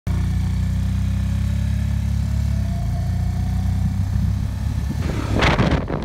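Motorcycle engine running steadily while riding, with a brief slight rise in pitch midway. A louder rush of noise swells in near the end.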